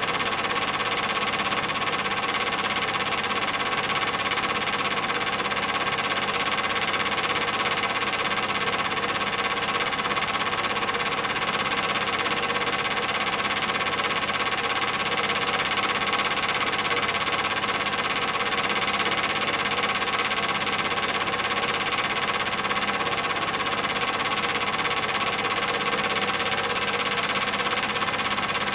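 Steady mechanical whirr with several constant tones, unchanging throughout, typical of a Super 8 film projector running.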